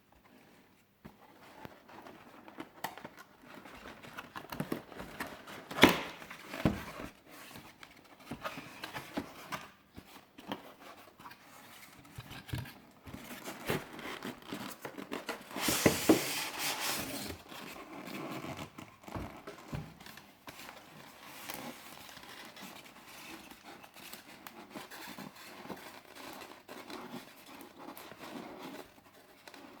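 Packaging of a 1:18 diecast model car being handled and opened: crinkling and rustling with many small clicks and knocks, a sharp knock about six seconds in, and a louder, longer crinkling rustle about halfway through.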